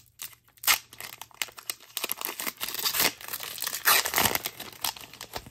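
Foil trading-card booster pack being torn open and its wrapper peeled apart by hand: a dense run of crinkling, crackling foil, loudest about a second in and again near the end.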